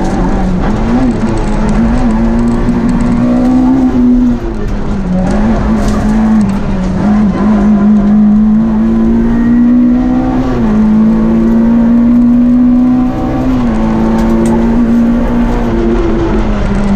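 Rally car engine heard from inside the cockpit, running hard on a stage. Its note climbs steadily, then drops sharply several times, about four, ten and thirteen seconds in, over constant road and tyre noise.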